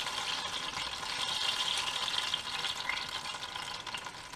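Hot oil in an electric deep fryer sizzling around tempura-battered banana fritters as the basket drains, a steady hiss that slowly dies down toward the end.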